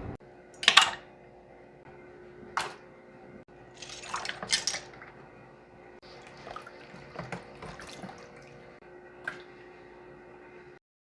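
Homemade foley for a restaurant kitchen: scattered water splashes and drips with clinks of dishes and cutlery over a steady faint hum. It cuts off suddenly near the end.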